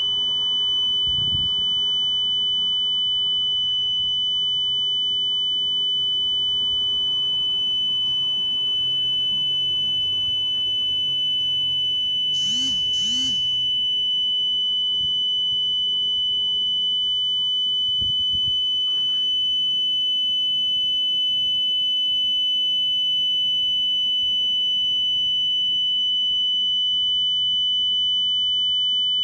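Home security alarm panel sounding its alarm as one steady, unbroken high-pitched tone during a medical alarm test, while the panel's two-way voice stays silent, a glitch. A brief warbling chirp sounds over it about halfway through.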